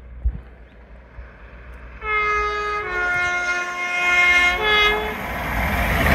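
LNER Azuma express train's two-tone horn sounded for about three seconds, stepping from a higher note down to a lower one and back up briefly at the end. It is followed by the rising rush of the train approaching at speed.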